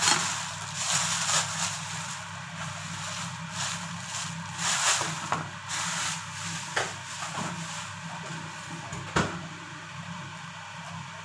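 Thin plastic bag crinkling and rustling as it is crumpled in the hands and pulled off raw prawns, with irregular crackles and a sharp click about nine seconds in. A steady low hum runs underneath.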